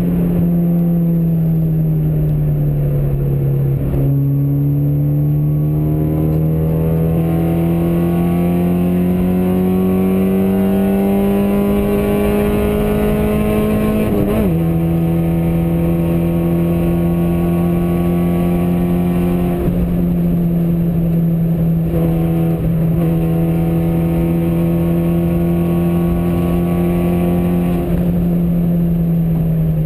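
Engine of the camera-carrying vehicle running loud and steady at highway speed. Its pitch dips, then climbs slowly for about ten seconds as it speeds up, drops sharply about 14 seconds in at a gear change, and then holds steady with a few brief dips.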